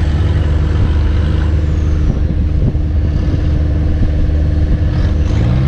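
Off-road vehicle engine running steadily, then revving up near the end.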